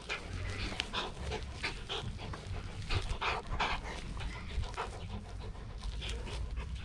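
Rottweiler puppy panting hard while tugging on a cloth tug toy, about three quick breaths a second.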